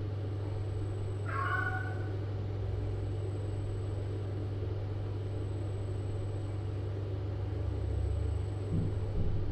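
A cat meows once, briefly, about a second and a half in, over a steady low hum. Two soft low bumps come near the end.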